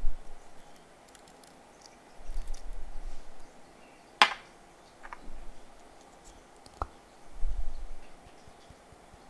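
Small plastic craft containers handled and shaken over a plastic tray: a few dull bumps and light taps, with one sharp click about four seconds in.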